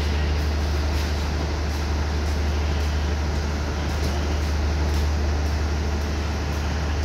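Steady low diesel hum of a passenger train standing at the platform with its engines idling, over an even background rumble.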